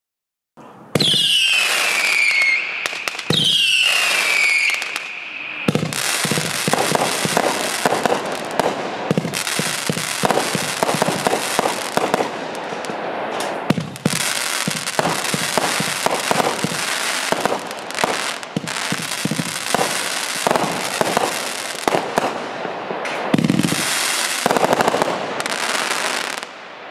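A 48-shot 500-gram consumer fireworks cake firing: about a second in come two whistles that fall in pitch, a couple of seconds apart, and after that a dense, continuous run of shots, bangs and crackle that dies away near the end.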